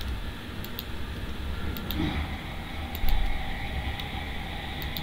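Steady low hum and hiss of room and computer background noise, with a few faint computer mouse clicks and a dull bump about three seconds in.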